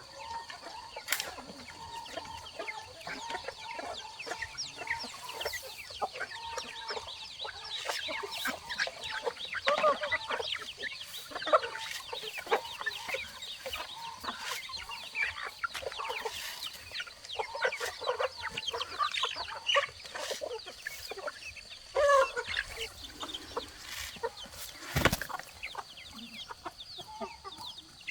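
Chickens clucking and calling continuously, with many short high chirps, and a few sharp knocks, one clear one near the end.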